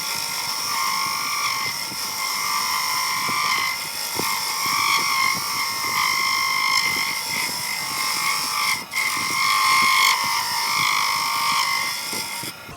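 Wen benchtop wood lathe spinning a wooden blank while a hand turning chisel cuts it, a steady rasping whine that swells and eases as the tool is pressed in and backed off. The cut breaks off for a moment about nine seconds in and stops just before the end, leaving the quieter hum of the lathe.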